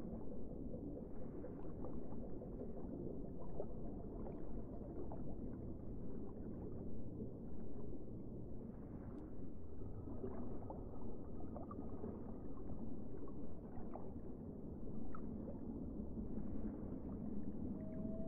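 Muffled underwater sound picked up by a submerged camera: a low, steady rumble of moving water with scattered faint ticks and clicks.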